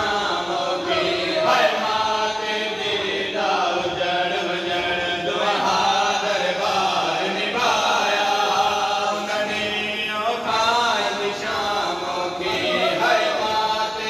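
A group of men chanting a mourning lament (noha) together in repeating phrases of about two seconds each, with a steady low hum underneath.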